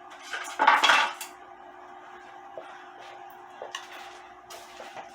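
Metal parts clattering and knocking as they are picked up and handled, most likely the cuckoo clock movement being fetched: one loud clatter about a second in, then a few light clicks and taps.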